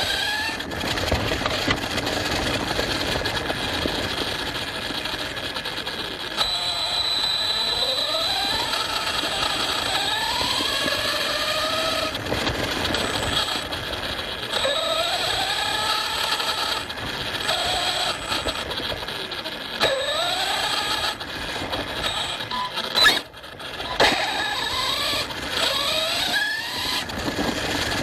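ARRMA Fireteam 6S RC car's brushless motor whining, its pitch rising and falling again and again with the throttle, over a steady rattle of tyres and drivetrain on rough off-road ground. Near the end come two sharp knocks about a second apart.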